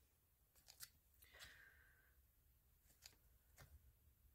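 Near silence, with a few faint, brief paper rustles and taps as the pages of a coloring book are turned.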